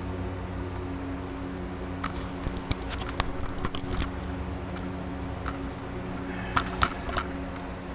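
Scattered light clicks and knocks from hands handling a hard motorcycle saddlebag and its mounting bolts, in a cluster about two to four seconds in and another about seven seconds in, over a steady low hum.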